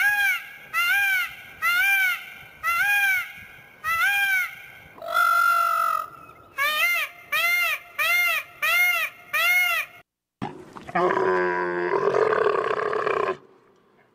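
Indian peafowl (peacock) calling over and over: loud, wailing cries rising and falling in pitch, about one a second, one held longer about five seconds in. They stop about ten seconds in, and after a short break a lower, rasping call from a different animal follows.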